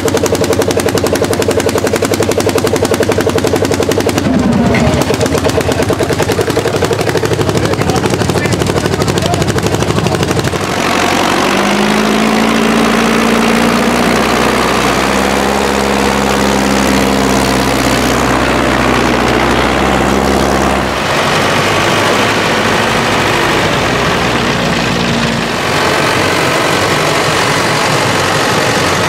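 Old Landini tractor's single-cylinder hot-bulb engine pounding out rapid, even firing beats while pulling a plow, for about the first ten seconds. It then gives way to the steadier running of a SAME Ariete diesel tractor engine under plowing load, its note changing a couple of times.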